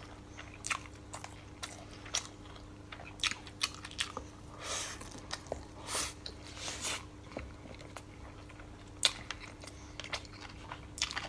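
Close-miked eating: a person chewing a sushi roll, with irregular wet mouth clicks, smacks and a few soft crunches.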